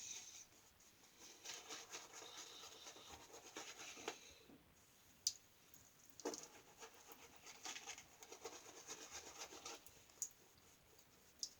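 Faint, intermittent scratching and rubbing of a wet shave at the face, in stretches of a few seconds, with a few light ticks in between.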